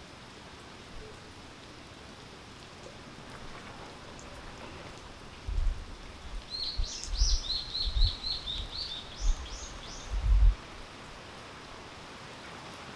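Steady rain falling. About halfway through, a bird gives a quick run of high repeated chirps, while a few loud, low thumps sound over the same few seconds.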